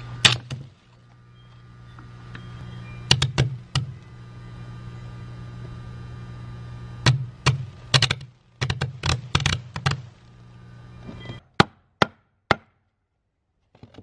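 An AC transformer arc welder humming under load, with several clusters of sharp crackling snaps as its live output arcs across knob-and-tube wire being shorted with the electrode holder and cut with bolt cutters. The hum cuts off near the end.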